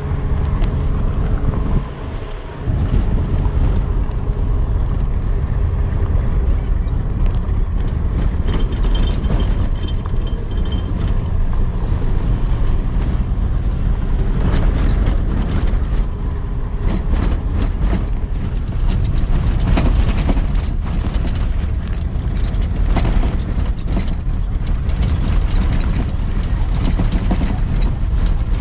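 Steady low rumble of a vehicle driving, with frequent small rattles and knocks, as from a rough road.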